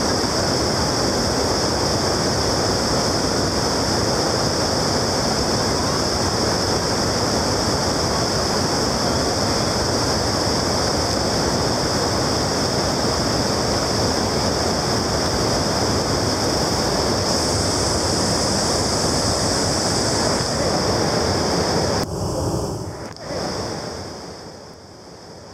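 Water pouring over the three-stepped horseshoe Pulteney Weir on the River Avon and churning into white water below it: a steady rush of falling water. Near the end it drops off and fades away.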